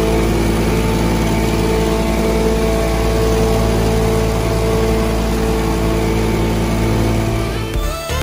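Petrol truckmount carpet-cleaning machine running at a steady speed. Music comes in near the end.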